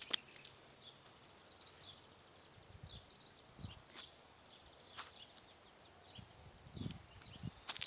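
Faint footsteps of someone walking over open ground, an irregular step or scuff every second or so, with a couple of heavier footfalls. Faint high bird chirps sound in the background.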